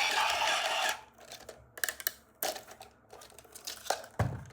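A battery-powered toy's electronic sound cuts off about a second in. Then come scattered clicks and crinkling from a toy and its plastic packaging being handled, with a low thump near the end.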